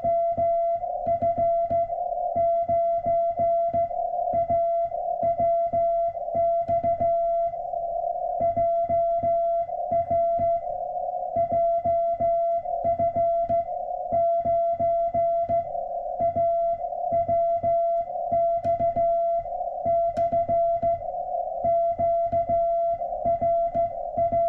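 Morse code (CW) tone from a ham radio transceiver, a single pitch of about 700 Hz keyed in short and long elements, with a low thump on each keying and a fainter steady tone underneath.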